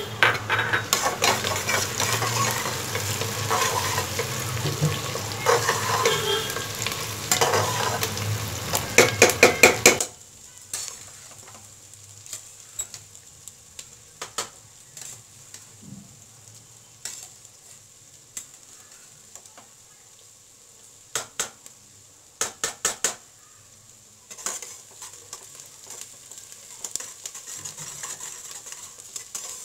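Sliced onions frying and sizzling in oil in a pressure cooker, stirred and scraped with a steel spatula. The sizzle is loud for about the first ten seconds, then drops off sharply, leaving a quieter sizzle with scattered clicks of the spatula against the pot, including a quick run of clinks about two-thirds through.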